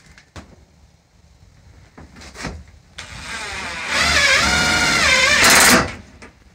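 Cordless drill running under load against the plastic tote wall, its pitch dipping and rising as it works. It starts softly about three seconds in, runs loud for nearly two seconds and then stops.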